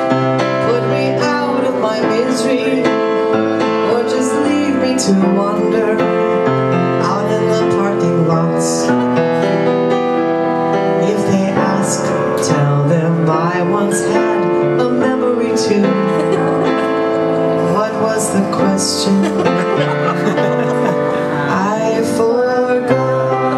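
A woman singing into a microphone while accompanying herself on piano.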